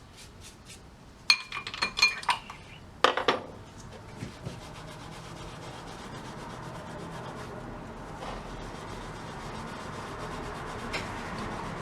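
Metal gumball-machine parts clink and knock together a few times. Then a wire wheel brushes grease and grime off the metal with a steady scratching sound that slowly grows louder.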